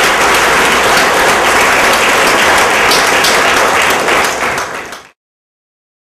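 Audience applauding, loud and steady, which cuts off abruptly about five seconds in.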